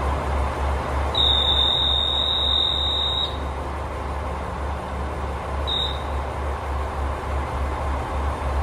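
Diesel railcar engine idling with a steady low throb. About a second in, a high-pitched electronic buzzer sounds for about two seconds, and a brief second buzz comes near six seconds: a signal before the train departs.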